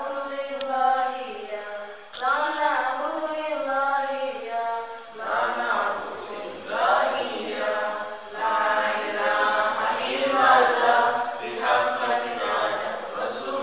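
Unaccompanied voices chanting a melody, growing fuller about five seconds in.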